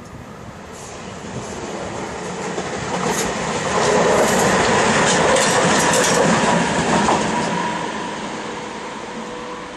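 An electric locomotive running light passes close by. Its rumble and wheel clatter swell to a peak about four seconds in and then fade away, with clicks from the wheels over rail joints and points and a steady whine underneath.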